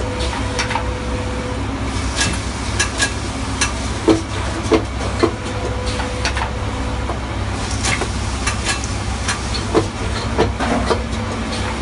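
Automatic Nespresso-compatible capsule filling and sealing machine (CMAF03-2) running. Irregular sharp mechanical clicks and clacks, some in quick pairs, sound over a steady low machine hum.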